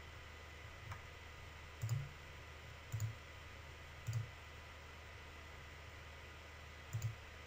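Single computer mouse clicks: a few about a second apart, then one more near the end, over a steady low hum and faint hiss.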